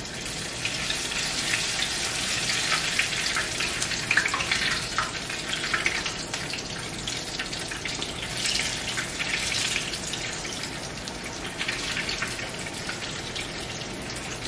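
Battered chicken wings deep-frying in a pot of hot oil: a continuous crackling sizzle, louder in two spells as pieces go into the oil.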